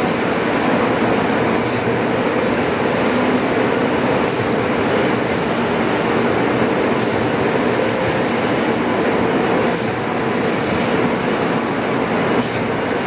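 MGI JetVarnish 3D press with its iFoil gold-foil unit running a job: a steady machine drone with a faint hum, broken by short hisses that come in pairs about every two and a half seconds.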